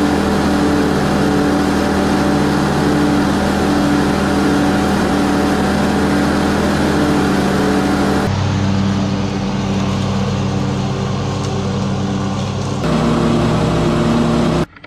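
Husqvarna YTH22V46 riding mower's V-twin engine running steadily with the blades engaged, mowing. The engine note changes abruptly twice, at about 8 and 13 seconds in, and cuts off just before the end.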